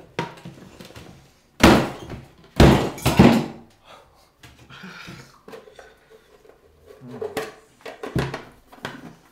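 Aluminium Trangia mess tin with a flameless ration heater shut inside, shaken and turned over by hand: hard clunks and rattles of the metal tin and lid, loudest in two bursts a couple of seconds in, with lighter knocks near the end.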